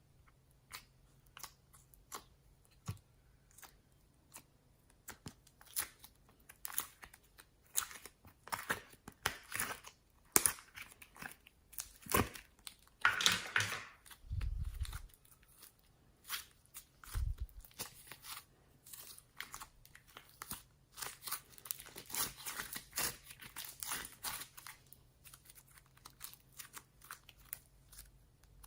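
Slime and crinkly material being handled by hand. Irregular crackles and crinkles run throughout, with a longer tearing rustle about thirteen seconds in and two dull thumps shortly after.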